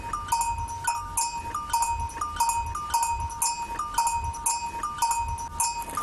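Metal bells hanging from goats' necks clanking at an uneven pace, about two to three strikes a second, each strike ringing on with one clear tone.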